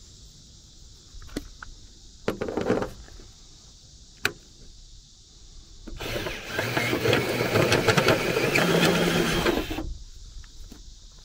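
Cordless drill with a step cone bit cutting through the aluminium hull side for about four seconds, starting about six seconds in, enlarging a hole to take a cable gland. A few light knocks and a click come before it.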